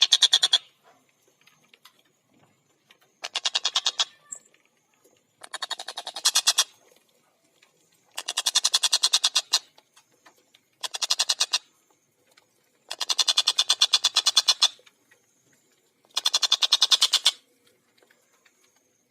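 Tengkek buto kingfisher calling in fast rattling bursts: six runs of rapid repeated notes, each under two seconds long, with short pauses between them.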